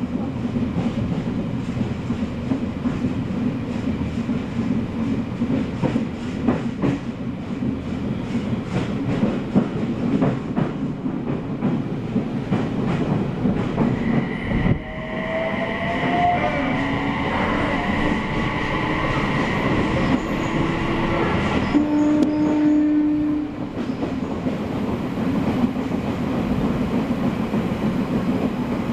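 Odakyu 3000 series electric train running on the rails, heard from inside the car: a steady rumble with wheels clacking over rail joints. About halfway through a whine with steady and rising pitches sets in for several seconds, then cuts off suddenly.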